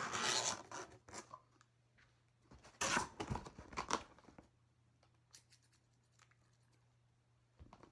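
Scissors cutting through the packing tape on a sealed cardboard box, in two short bursts, one at the start and one about three seconds in, then faint handling of the box.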